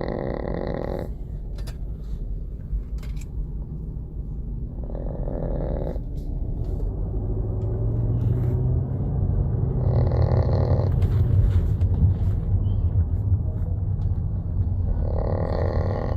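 Small dog snoring in slow, even breaths, about one snore every five seconds, four in all, over a steady low rumble that grows louder about halfway through.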